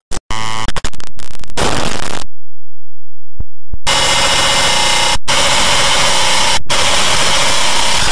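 Very loud, harsh distorted noise like blasted static. A few short bursts come in the first two seconds, then a gap of about a second and a half, then a continuous blast that cuts out briefly twice.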